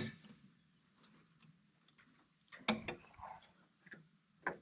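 A few faint, scattered clicks and knocks, a small cluster about halfway through and a sharper knock near the end.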